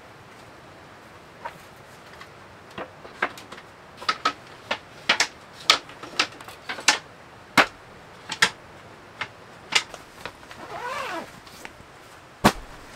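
Wooden knocks and clacks as plywood shelf boards are handled and slotted into a knock-down wooden shelf frame: irregular sharp knocks, a few a second at times, with one louder knock near the end.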